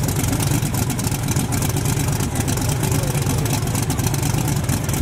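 Fox-body Ford Mustang drag car's engine idling, a steady, rapid pulsing idle with no revving.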